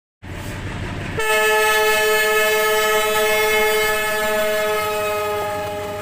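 Locomotive air horn sounding one long blast of several tones at once, starting about a second in over a low rumble, its pitch sagging slightly as it goes.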